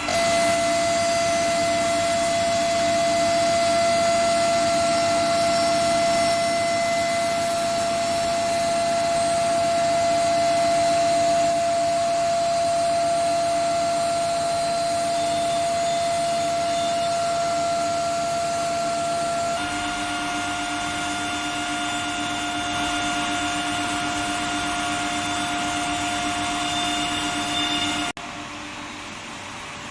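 Induction heating furnace running: a steady high-pitched whine over a noise bed. The whine steps slightly higher in pitch about two-thirds of the way through, then cuts off abruptly near the end.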